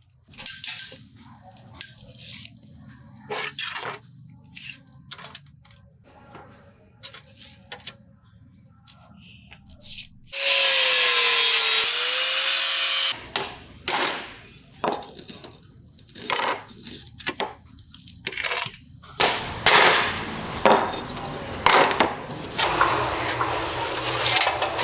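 Knocks and clanks of rusty sheet-steel mudguard parts being handled on a wooden bench. About ten seconds in, an angle grinder with a cutting disc cuts through the mudguard's rusty steel bracket for about three seconds. The clanks come louder and more often near the end.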